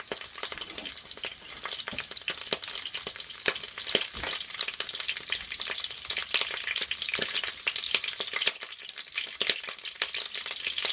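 Food frying in hot oil in a pan on high heat: a steady sizzle with many sharp, irregular crackles and pops as the oil spatters.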